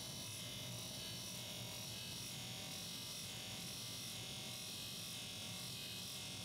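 Polishing motor spinning a cloth buffing wheel with a small part held against it, giving a steady high hiss over a faint low motor hum.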